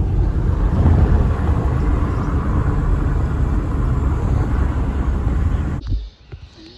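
Steady road and engine rumble of a car being driven. It cuts off abruptly near the end into a much quieter stretch with a few faint ticks.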